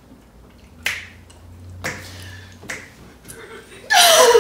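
Three sharp snaps about a second apart, then, near the end, a loud high-pitched cry from a woman that slides down in pitch amid laughter.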